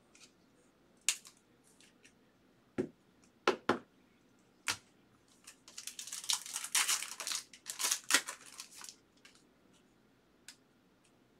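Trading-card pack wrapper being opened by hand: a few sharp clicks and taps of cards and packaging, then several seconds of crinkling and tearing of the wrapper.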